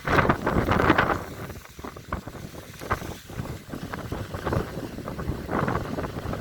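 Strong hurricane-force wind gusting and buffeting the microphone, with the strongest gust in the first second and rougher, lower blasts after it.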